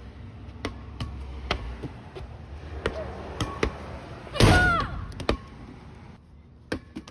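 Red rubber playground ball bouncing on concrete and being hit back and forth in a four square game: a series of sharp bounces. About four and a half seconds in, a child gives a brief loud yell, the loudest sound.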